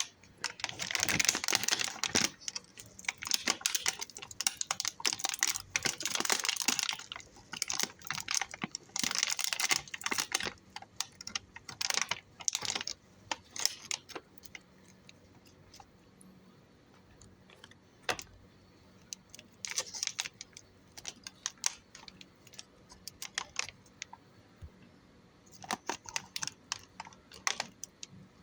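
Food packaging being handled and opened: bursts of crinkling and rustling with scattered sharp clicks in between, the longest stretch of crinkling in the first ten seconds and a short one near the end.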